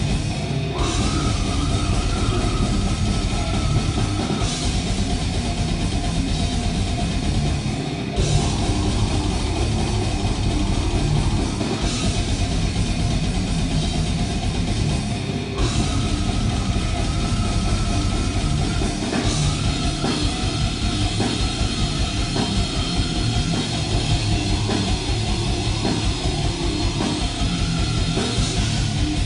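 Death metal band playing live, loud and fast: dense pounding drums and cymbals under distorted guitars, with short breaks in the drumming about 8 seconds in and again near 15 seconds.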